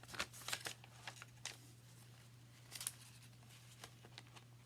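Brief rustles and scrapes of paper pages being handled as hemp cord is worked through the stitching holes of a hand-sewn signature, several in the first second and a half and one more near three seconds, over a low steady electrical hum.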